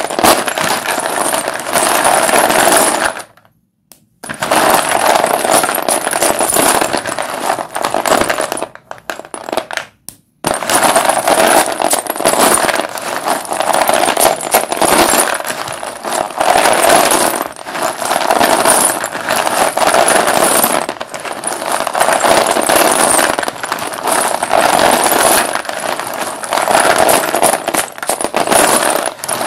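White dustless school chalk being crushed and broken by hand: dense, crunchy crackling made of many small snaps. It stops briefly twice, about three seconds in and again around nine to ten seconds in.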